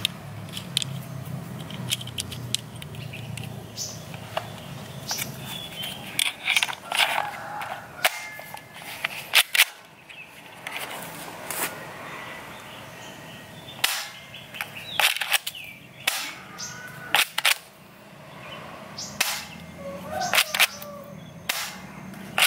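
Toy 1911-style pistol being loaded and fired. Small clicks come first as cartridges are pressed into its magazine, then from about six seconds in a string of sharp, irregularly spaced snaps as it is cocked and shot.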